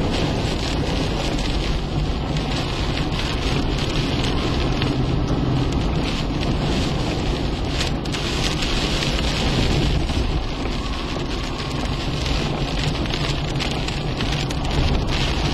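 Heavy rain pelting a moving car, heard from inside the cabin over the steady rumble of road noise.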